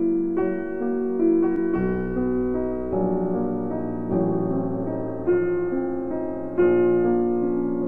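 Background music: a soft piano melody, sustained notes changing about once a second.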